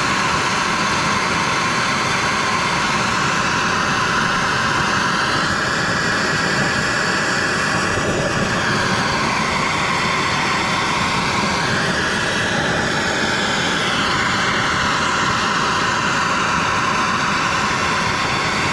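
Handheld gas blowtorch burning with a steady hiss as its flame heats the steel axle housing's bearing bore, expanding it so a chilled wheel bearing will drop in.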